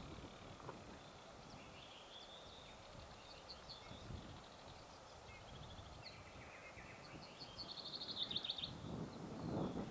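Songbirds singing: several high chirping phrases and fast trills, one louder trill about three quarters of the way in, over a faint outdoor hiss. Near the end a louder low rustle of handling noise.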